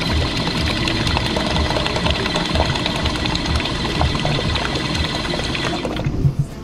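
A self-serve drink dispenser pours a stream into a plastic cup, its pump running steadily, then cuts off about six seconds in. A few short knocks follow near the end.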